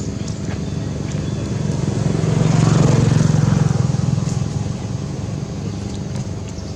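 A motor vehicle passing close by over a steady engine hum: the sound swells to a peak about three seconds in and then fades away.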